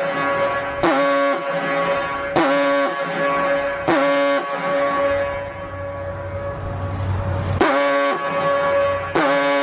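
Outdoor warning siren sounding a steady, horn-like tone in repeated blasts, each starting abruptly with a brief upward scoop in pitch, about every second and a half, with one longer blast held for several seconds in the middle.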